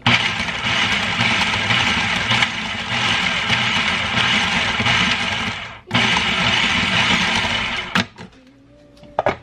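Electric food processor running, chopping raw cauliflower down to rice-like crumbs. It runs for about six seconds, stops for a moment, then runs about two seconds more before cutting off.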